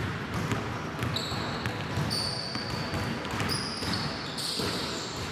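A basketball being dribbled on a court, with sneakers squeaking sharply several times as the players move.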